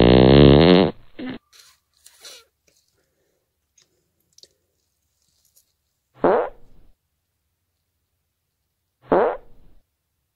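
Air blown by mouth through a pen's narrow ink cartridge tube to force the ink out, making a pitched buzz. One long buzz stops about a second in, then two short buzzes, each falling in pitch, come near the middle and near the end.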